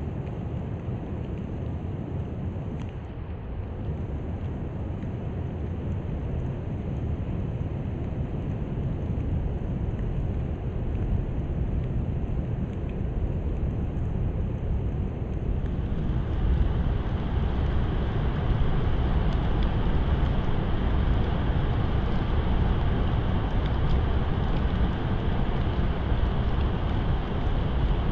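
Rainstorm ambience: a steady low rumble of wind on the microphone under a continuous hiss of rain. The hiss steps up and grows louder about halfway through.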